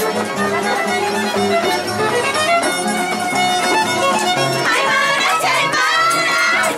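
Andean folk music on violin and harp; about two-thirds of the way through, women's voices join in singing.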